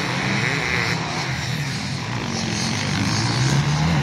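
Off-road enduro motorcycle engine running and revving, its pitch wavering and climbing about three and a half seconds in.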